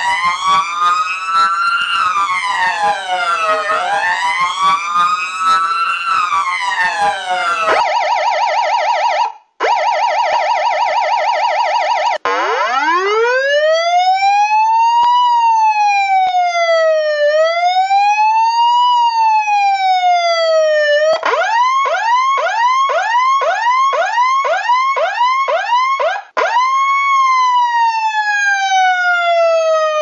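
Electronic emergency-vehicle sirens going through a string of patterns. First a wail rising and falling slowly, then a fast warble broken once by a short gap. Then a wail climbing from low pitch and sweeping up and down, a rapid yelp, and near the end one more rise that winds slowly down.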